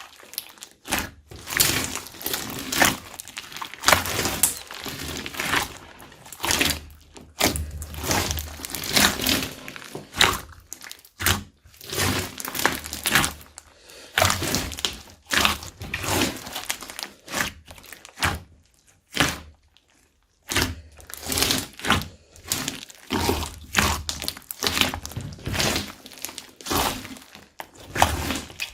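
Slime being mixed and squished by hand, making irregular sticky clicks, pops and crackles, with a short pause about two-thirds of the way through.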